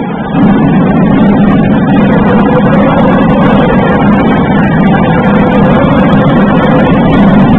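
Loud, steady, distorted din of a basketball arena, with no clear single sound picked out.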